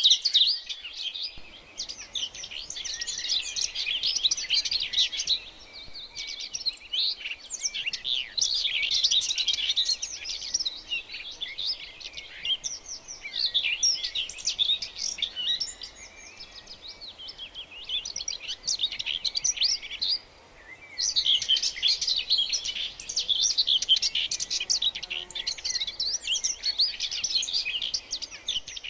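Birds chirping and twittering in dense, overlapping high calls, with a brief lull about twenty seconds in.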